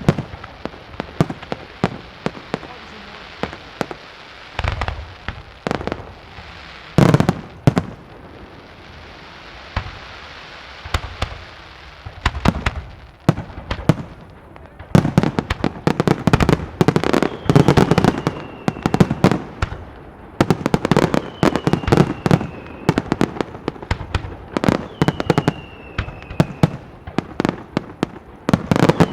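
Professional fireworks display: shells bursting with sharp bangs and crackle, scattered at first, then a dense rapid barrage from about halfway through. A few short falling whistles sound through the second half.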